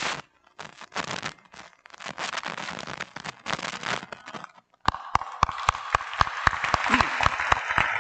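Crowd applause in a large hall, starting in broken bursts of noise. About five seconds in it fills out, and one person clapping close to a microphone adds sharp claps, about three a second.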